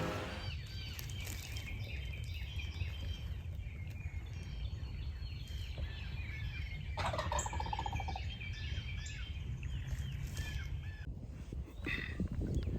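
Songbirds chirping at dawn, with one wild turkey gobble, a rapid rattling call, about seven seconds in.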